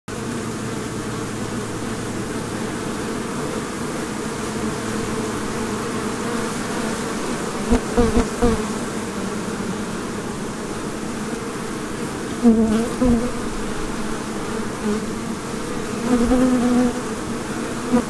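Honeybees buzzing at a hive entrance: a dense, steady hum of many bees, with a single bee buzzing louder for a moment several times, about eight, thirteen and sixteen seconds in.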